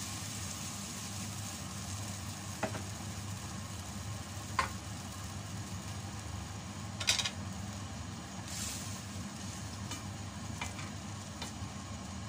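Chicken adobo cooking in coconut milk in a steel pot on a gas stove, a faint sizzle over a steady low hum. A few sharp clicks and taps come through it, the loudest about seven seconds in.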